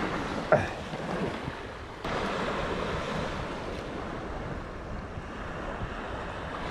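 Sea surf washing in steadily, with wind noise on the microphone. A short knock comes about half a second in, and the noise steps up suddenly about two seconds in.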